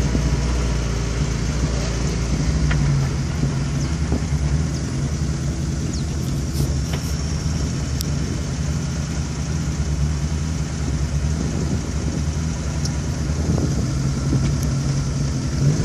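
4x4 SUV engine running at low speed on a rough dirt track, a steady low hum with a few short knocks and rattles.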